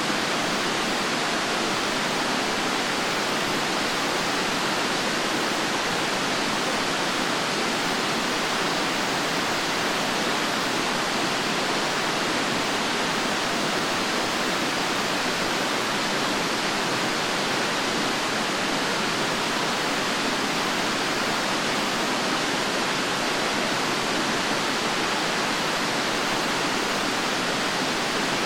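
Fukuroda Falls, a large waterfall, rushing in a steady, unbroken roar of falling water that does not change.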